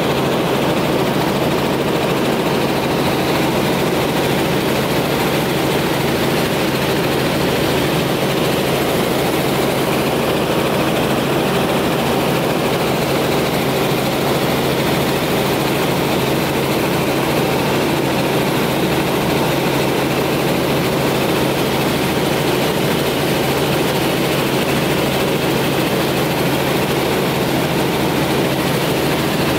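Helicopter engine and rotor noise heard from inside the cabin in flight, a loud steady drone that does not change.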